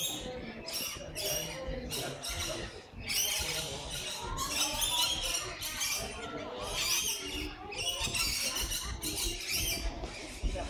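Rainbow lorikeets chattering: many short, high-pitched squeaky and screechy calls that overlap without pause.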